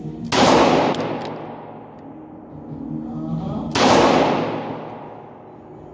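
Two gunshots about three and a half seconds apart, each ringing out for a second or more in an indoor shooting range, with background music under them.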